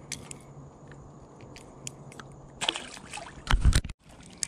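Light clicks and knocks of gear being handled in a fishing boat, over a faint steady hum. A rush of noise comes about two and a half seconds in, then a short, louder low rumble that cuts off abruptly.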